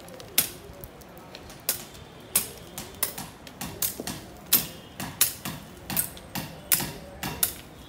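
Curved cutlass swung low over the ground, chopping grass and striking the sandy, stony soil: a series of sharp slashing strikes, roughly two a second and unevenly spaced.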